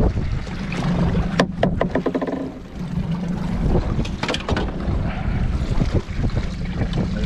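Twin 70 hp outboard motors running with a steady low hum, pushing the boat forward, with wind buffeting the microphone. A couple of sharp knocks cut through, one about a second and a half in and one past the middle.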